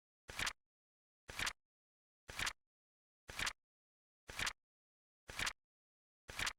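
Flip-clock flap sound effect, a short double click once a second, seven times in steady rhythm.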